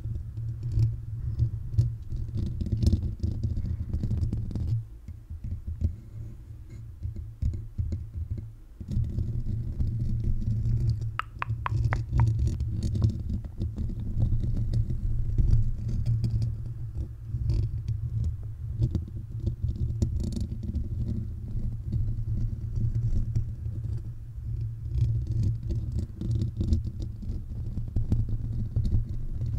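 Bare fingertips tapping rapidly on a microphone's metal mesh grille, picked up right at the capsule as a dense, muffled low patter. It softens for a few seconds about five seconds in, and there is a short metallic ringing about eleven seconds in.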